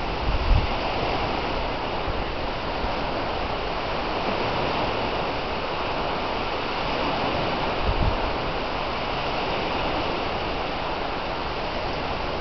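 Steady rush of wind and small waves breaking on a lake shore, with two brief low thumps, one just after the start and one about eight seconds in.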